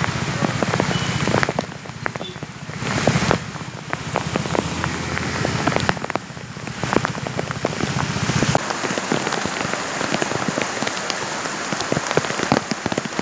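Heavy rain pouring onto a flooded street: a dense, steady hiss with many sharp drop hits close by. Its character shifts a few times as the footage changes.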